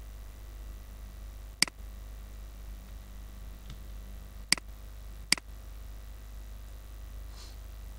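Three sharp computer mouse clicks over a low steady hum: one about a second and a half in, then two close together a little past the middle.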